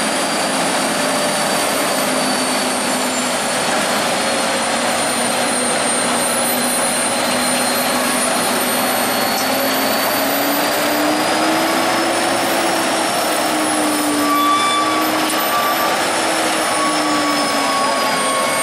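Diesel engines of Volvo heavy-haul trucks running under load as they manoeuvre a heavy low-loader trailer, a steady engine noise with a whine that slowly rises and falls in pitch.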